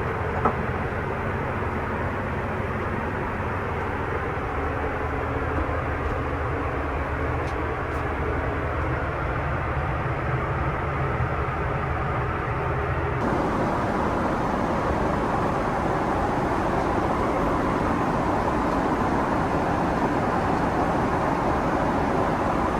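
Steady rushing cabin noise inside a Boeing 777-300ER airliner, with a single small click about half a second in. About two-thirds of the way through, the noise abruptly becomes a little louder and brighter.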